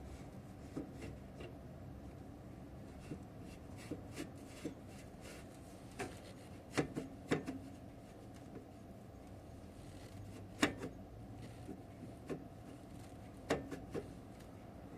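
Hand work on a motorcycle silencer being fitted: irregular clicks, light knocks and rubbing of parts being handled, with a few sharper knocks about halfway through and near the end.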